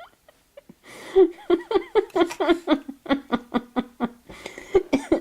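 A person laughing hard in a long run of quick 'ha-ha' bursts, about four or five a second, starting about a second in.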